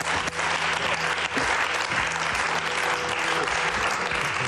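Studio audience applauding steadily, with soft game-show background music underneath.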